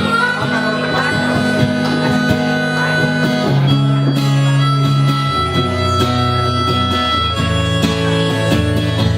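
Live band in an instrumental break: a harmonica playing long held notes over strummed acoustic guitar.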